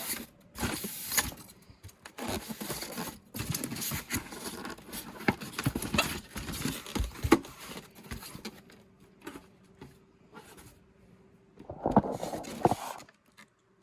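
A cardboard box and its packaging being handled and shifted around: irregular scraping, rustling and knocking, with a faint steady hum in the second half.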